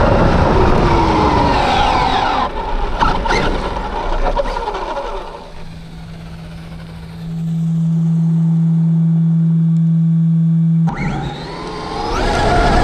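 Traxxas Rustler 4x4 RC truck with a Castle Sidewinder 4 brushless setup on 3S, driving on asphalt: a brushless motor whine that falls and rises with the throttle over tyre and road noise, with a few sharp clicks. A steady low hum holds for about four seconds and cuts off suddenly, then the motor whine climbs steeply as the truck accelerates near the end.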